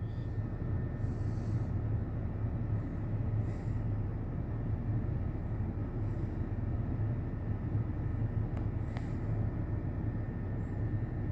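CN freight train rolling past: a steady low rumble from the locomotives and grain cars on the rails, with faint brief high sounds every few seconds.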